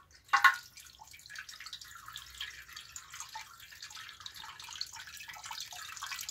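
Water poured through a funnel into a chain of taped-together plastic bottles, running and trickling steadily, with one short, louder splash about half a second in.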